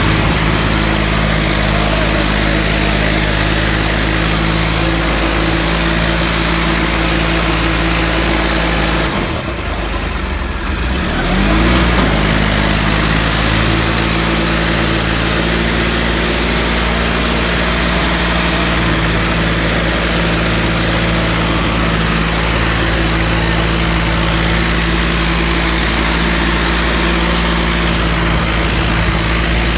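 John Deere 5310's three-cylinder diesel engine running steadily, heard up close. The engine note drops away briefly about nine seconds in, then revs back up.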